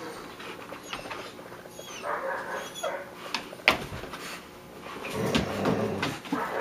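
Dogs playing tug of war with a sock, making low play noises with scuffling and soft clicks. There is a sharp knock a little past halfway, and the dog noise grows louder near the end.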